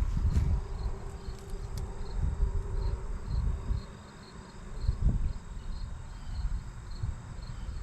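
An insect chirping in an even rhythm of about two short high chirps a second, over low rumbling and a few dull thumps, the strongest about five seconds in.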